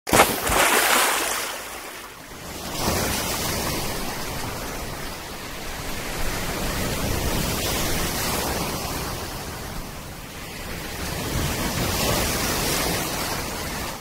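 Sea surf washing and breaking in the shallows, in swells that rise and ease, then cutting off abruptly at the end.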